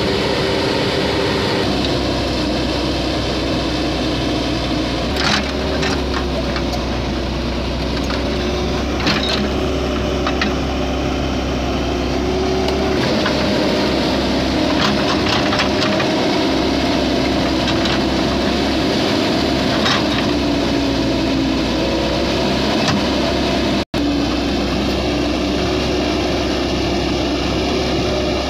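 JCB JS140 tracked excavator's diesel engine running steadily while it works, with a few sharp knocks of the bucket against rock and stone.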